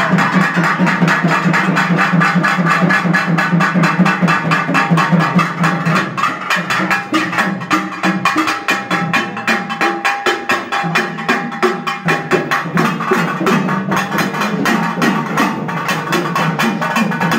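Fast, loud, continuous drumming on rope-laced barrel drums, a dense even run of strokes that keeps on without a break.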